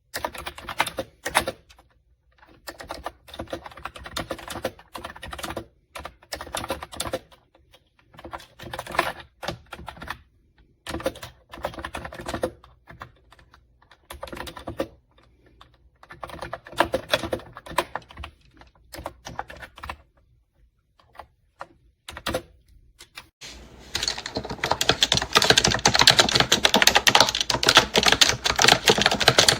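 Typing on a Kootop retro typewriter-style wireless keyboard with round keys: bursts of key clicks with short pauses between them, turning into fast, continuous, louder typing in the last few seconds.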